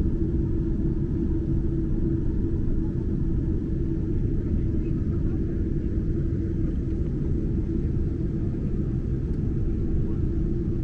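Cabin noise of a Boeing 747-8 taxiing: the steady low rumble of its GEnx-2B turbofans at taxi power and the wheels rolling, with a steady hum over it.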